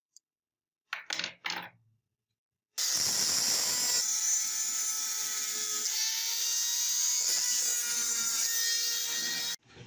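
Two short scrapes about a second in. Then, from about three seconds in, a handheld rotary tool runs with a steady high whine, its bit grinding rust inside a diecast toy car body. It stops sharply just before the end.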